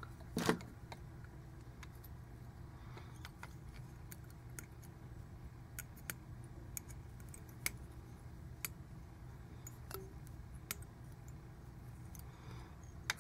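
Small sharp clicks and ticks, scattered every second or so, with a louder one about half a second in, as fly-tying tools and stiff monofilament are handled at the vise, over a faint steady low hum.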